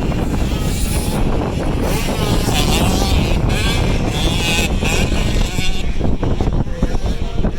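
65cc two-stroke motocross bikes racing, their engines revving up and down.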